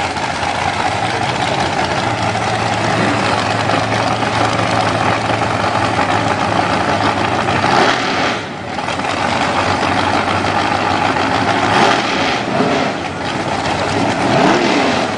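Drag race cars' engines running loudly at the starting line, idling without launching; near the end the revs rise and fall.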